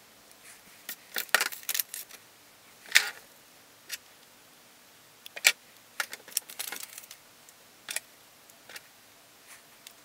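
Irregular light metallic clicks and clinks as new piston rings are turned in their grooves to stagger the ring gaps, and ring pliers and a ring compressor are handled on a steel workbench. The clicks cluster in the first two seconds and again about six and a half seconds in.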